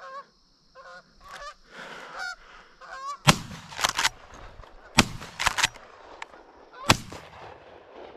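A flock of Canada geese honking overhead, then three loud shotgun shots, the first about three seconds in and the others roughly a second and a half to two seconds apart, with honking going on between them.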